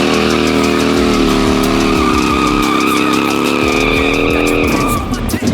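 Harley-Davidson V-twin held at high revs during a burnout, with the rear tire skidding on the pavement. The steady engine note breaks off near the end.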